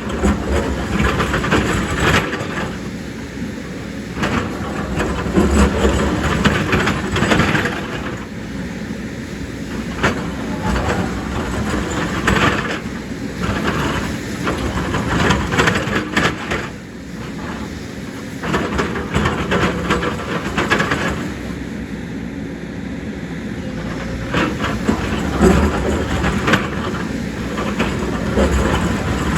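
Excavator at work: its diesel engine running under load, with irregular metallic clanking and rattling that comes and goes in clusters.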